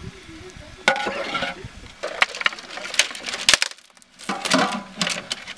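Metal cookware clattering: a metal ladle scraping and knocking against a large aluminium cooking pot, then the pot's metal lid clanking as it is handled. A series of sharp, irregular clanks and scrapes, some briefly ringing.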